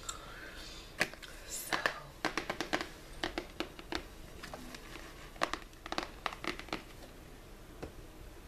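Crinkling and tapping from hands handling something close to the microphone: scattered sharp clicks, with quick runs of about six taps a second twice in the middle.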